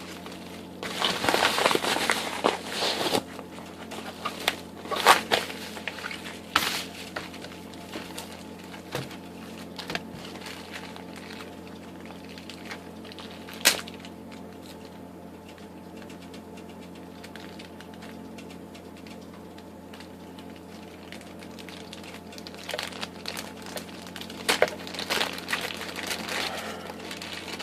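Packaging being unwrapped by hand: crinkling and rustling in bursts, loudest in the first few seconds and again near the end, with one sharp click about 14 seconds in and a quieter stretch in the middle. A steady low hum runs underneath.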